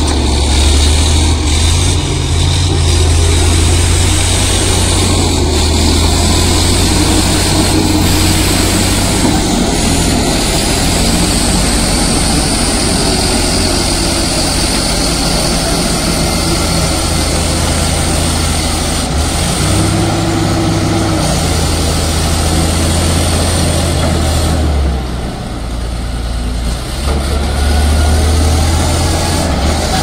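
Caterpillar D7G crawler bulldozer's six-cylinder diesel engine running hard under load as the dozer pushes brush with its blade. The engine eases off briefly near the end, then picks up again.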